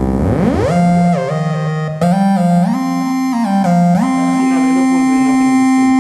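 Casio XW-G1 synthesizer playing a bright lead patch with glide. It opens with a rising pitch sweep, then the notes slide smoothly from one pitch to the next.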